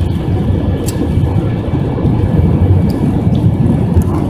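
Cabin noise inside an Airbus A321 airliner: a steady low rumble of engines and rushing air, with a few faint clicks and rattles.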